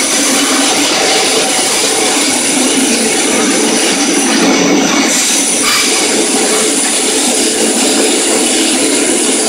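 Tokyo Metro 02 series subway car, a large-scale-renovated unit, running along the line: a steady loud rumble of wheels on rail, with thin high tones held above it.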